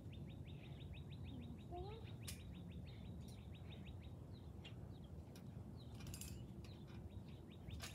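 A bird trilling outdoors: two long runs of rapid, evenly repeated high chirps, about nine a second, the first stopping about four seconds in and the second starting near the end, over a faint steady background rumble.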